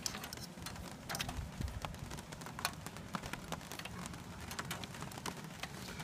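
Light rain: scattered raindrops tapping, many sharp irregular ticks over a soft hiss.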